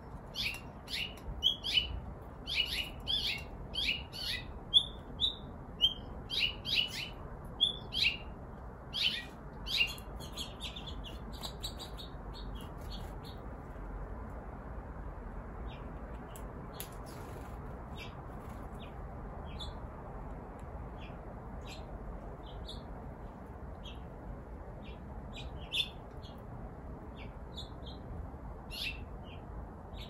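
Small songbirds chirping: a quick run of short, high calls for the first ten seconds or so, then scattered single chirps, over a steady faint background hiss.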